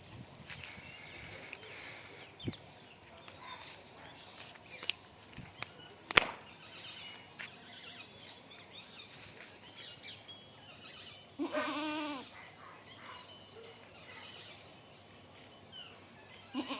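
Barbari goats bleating: one bleat of just under a second about two-thirds of the way through, and another starting right at the end. There is a sharp knock about six seconds in and a few lighter clicks.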